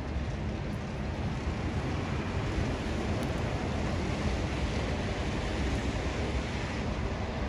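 A heavy municipal salt-spreader and plow truck running along a slushy street: a steady rushing of engine and tyres on wet slush.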